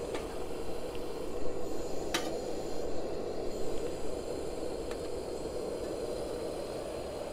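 LP gas burner in a Trangia 25 stove running steadily under a lidded pot of water at a rolling boil, a steady rushing hiss. A single light metal click about two seconds in as the pot handle is gripped.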